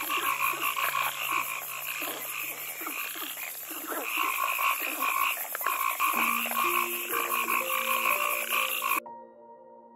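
Frogs croaking, many pulsing calls overlapping into a dense chorus that cuts off suddenly about a second before the end.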